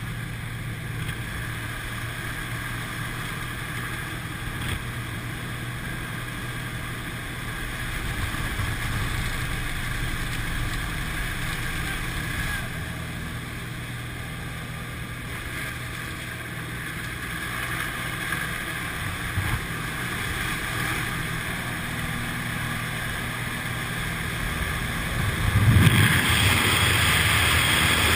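Small jump plane's engine and propeller droning steadily inside the cabin. Near the end a loud rush of wind comes in as the jump door opens.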